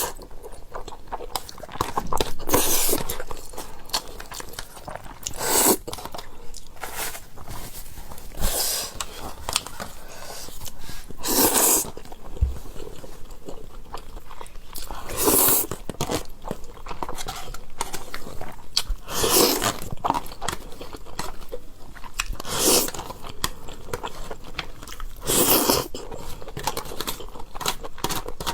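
Close-miked eating of spaghetti: wet chewing and mouth clicks, with a louder mouthful sound about every three to four seconds.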